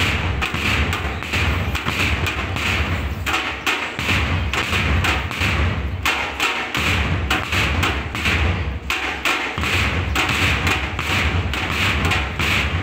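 Marching drums playing a steady cadence: deep bass-drum thumps under sharper, quicker strokes, keeping time for marchers. The low thumps drop out briefly three times.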